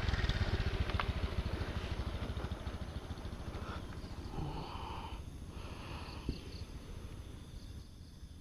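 Motor scooter passing close and riding away, its small engine's rapid low pulsing fading steadily into the distance.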